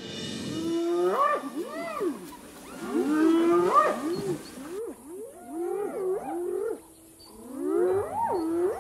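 Spotted hyenas calling: repeated short whooping calls that rise and fall in pitch, several voices overlapping, in four bouts with short pauses between them.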